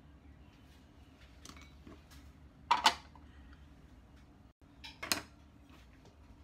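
Handling noises at a metal baking tray lined with baking paper: two short scraping clatters about two seconds apart, over a faint steady hum.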